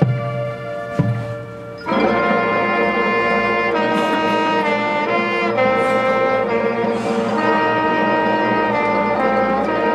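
Marching band playing a field show: held notes with two sharp drum hits in the first two seconds, then the full brass section comes in loudly at about two seconds with sustained chords that shift in pitch.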